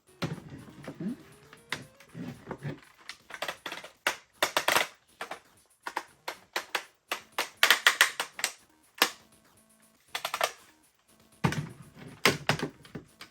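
Hard plastic toy parts clicking and clattering as they are handled and fitted together, in several quick bursts of sharp clicks.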